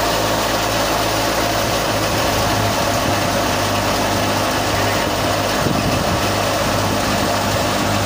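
Tractor-driven Super National wheat thresher running while threshing: a steady, loud mechanical drone of the tractor engine and the spinning threshing drum and fan, with a constant rush of blown chaff.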